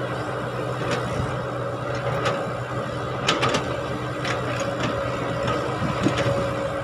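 Caterpillar hydraulic excavator's diesel engine running steadily as it digs, with several sharp metallic clicks and clanks from the bucket and arm linkage scattered through.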